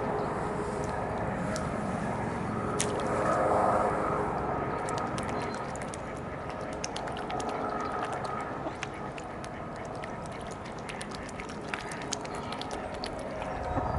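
Mallard ducks quacking and dabbling in shallow pond water close by, with many small quick clicks and splashes from about five seconds in, over a steady low rumble.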